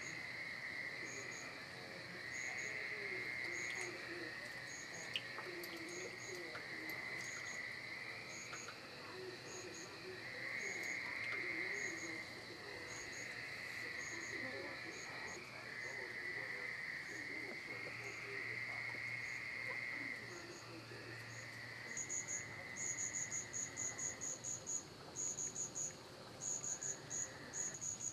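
Night insect chorus of crickets: a shrill drone that swells and fades every couple of seconds, with a high chirp repeating about once a second that quickens into rapid pulsing runs near the end.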